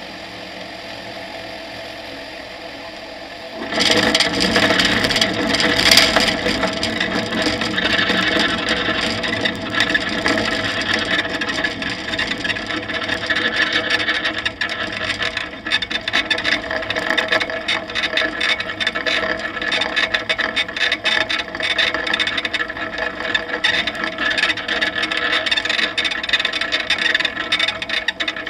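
Tetras microlight's engine humming steadily at idle, then about four seconds in a sudden, loud rattling rumble as the wheels run over the grass strip, the airframe and undercarriage rattling and scraping over the bumpy ground until the end.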